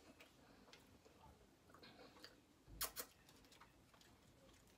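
Near silence in a small room: faint scattered ticks, then two sharp clicks in quick succession a little past halfway.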